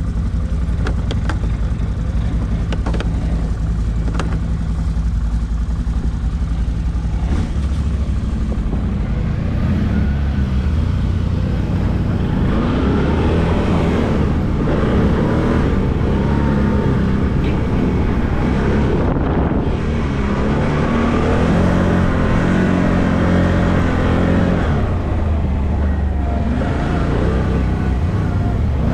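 ATV engine running: steady at first, then from about eight seconds in a little louder, its pitch rising and falling as the throttle changes.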